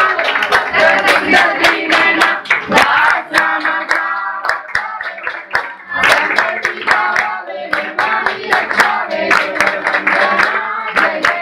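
A group of people sings a Ganesh aarti with steady rhythmic hand-clapping keeping the beat.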